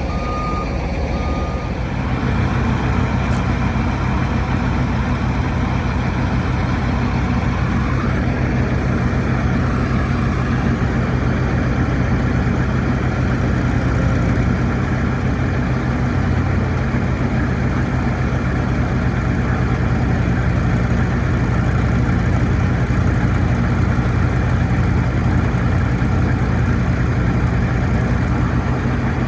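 Heavy diesel engine running steadily, with a backup alarm beeping at an even pace for the first couple of seconds before it stops.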